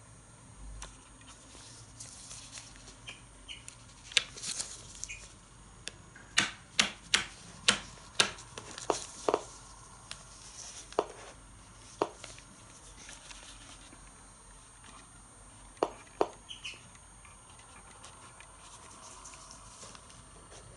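DP-5VB radiometer clicking at random, irregular intervals, each click a particle counted by its detector. The clicks are sharp, about fifteen in all, bunched around the middle, with a pair a little later.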